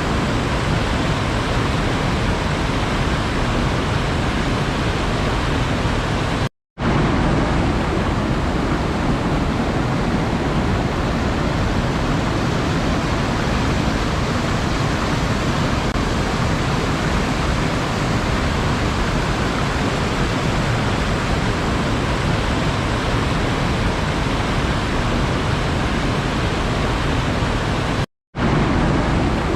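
Steady, even rush of sea water, a continuous noise with no separate wave breaks. It cuts out to silence for a split second twice, about seven seconds in and near the end.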